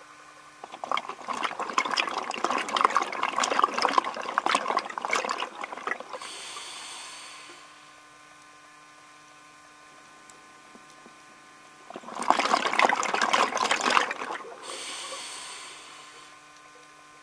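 Scuba diver breathing through a regulator, heard through an underwater camera housing: two long exhalations of crackling, bubbling air, each followed by a shorter hissing inhale.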